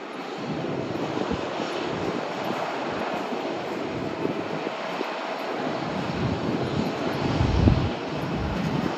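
Airliner engines running: a steady rushing noise with a faint steady tone in it, and a swell in the low end about three-quarters of the way through.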